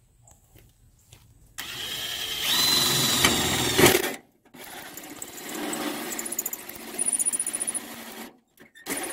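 Cordless drill driving a hole saw into the sheet-metal fender of a Jeep Cherokee XJ. It starts about a second and a half in with a high ringing screech as the teeth bite the metal, stops briefly around four seconds in, then runs again more quietly and pauses once more near the end.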